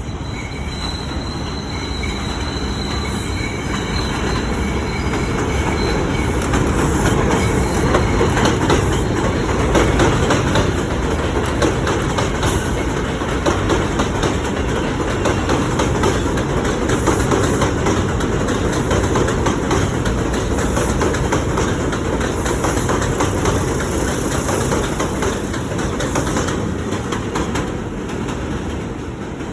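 New York City subway 5 express train passing through a station without stopping: a loud, steady rumble of steel wheels on rails with fast clickety-clack over the rail joints. A faint high wheel squeal sounds in the first few seconds, and the noise builds for several seconds and eases off near the end.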